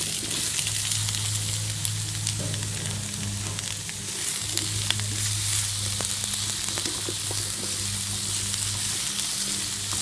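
Cut vegetables sizzling in hot grapeseed oil in a wok: a steady hiss with scattered small pops and crackles. A low steady hum runs underneath.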